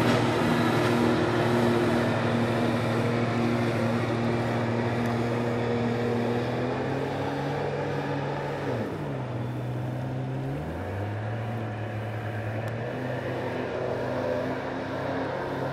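Small jet boat's engine running at speed, a steady drone that slowly grows fainter. About nine seconds in, the engine note drops and then climbs back up to speed.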